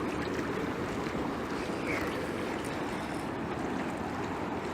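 Steady wash of lake waves against a flooded pier, with some wind on the microphone.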